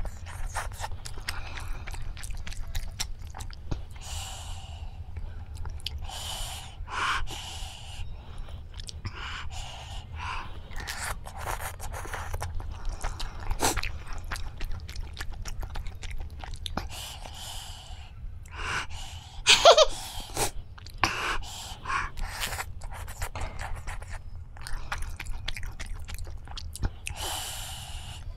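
Close-up eating sounds of a person eating spicy ghost pepper noodles with chopsticks: chewing and slurping, with many small clicks and sharp breaths drawn in against the heat. A brief louder sound from the throat comes a little under two-thirds of the way through.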